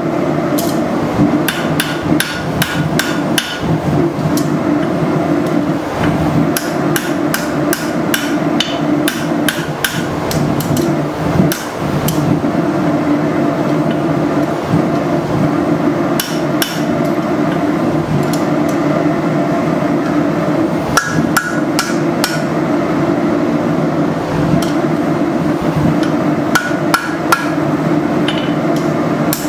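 Hand hammer striking a horseshoe held in tongs on an anvil face to straighten it: runs of sharp blows, some ringing briefly. A steady low drone runs underneath.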